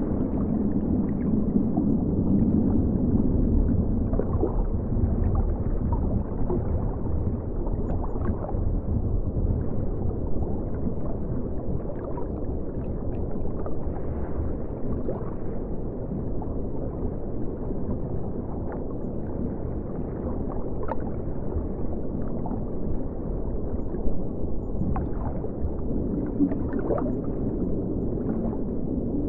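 River water flowing, heard muffled through a camera set in the river: a steady deep rumble and gurgle with scattered faint ticks.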